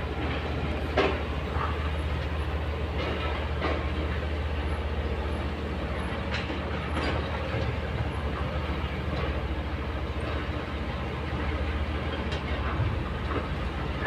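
Kobelco crawler excavator's diesel engine running steadily as it works, with a few scattered clanks and knocks of steel and rock, the loudest about a second in.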